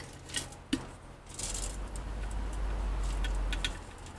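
Light knocks and taps from a plastic bucket of potting soil being tipped and handled. A steady low rumble comes in about a second and a half in and stops shortly before the end.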